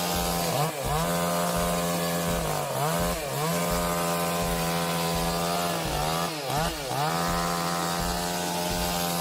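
Two-stroke chainsaw running at full throttle while cutting wood. Its pitch sags briefly several times as the engine bogs under the load of the cut, then climbs back.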